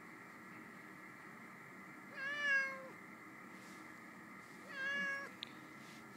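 Ragdoll cat giving two drawn-out meows, about two seconds in and again about five seconds in, each under a second long. It is the cat's 'I see another cat' meow, a territorial call at the sight of a strange cat.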